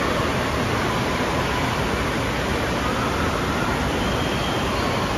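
Steady rushing of water from the slides and splash-pad water features of an indoor water park, an even noise with no breaks, with faint distant voices under it.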